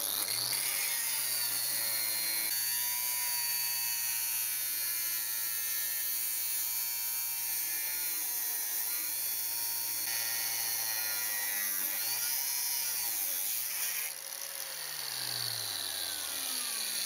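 A 125 mm angle grinder on a chop stand cutting through steel profile tube with a 1.2 mm-thick Perm abrasive cut-off disc: a steady motor hum under a grinding hiss for most of the cut. About three seconds before the end the pitch wavers up and down and the sound briefly drops in level.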